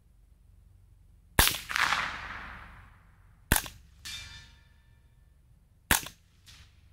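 Three single rifle shots from a Colt AR-15 Sporter II firing .22 LR rounds through a subcaliber conversion, about two seconds apart. The first trails off into a long echo, and each of the last two is followed about half a second later by a fainter sound; the one after the second shot rings.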